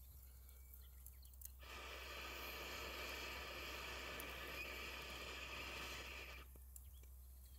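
A long breath blown through a metal fire-blowing pipe into a small wood-burning grill stove to liven the fire: a steady airy hiss lasting about five seconds, starting about one and a half seconds in after a pause for breath and stopping near the end.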